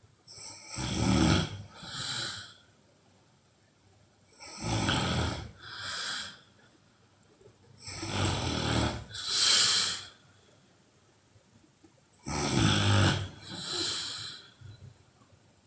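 A woman snoring loudly in her sleep: four snores about four seconds apart, each a longer snore followed at once by a shorter second one, with quiet pauses between.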